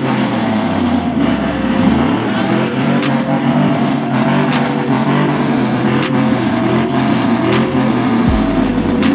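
Pickup truck engines revving and running, their pitch rising and falling over one another, with a deep low rumble near the end.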